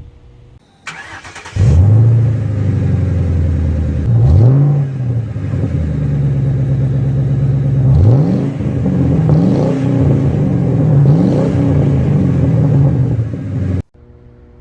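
Motor vehicle engine revving, its pitch rising and falling several times. It starts and cuts off abruptly.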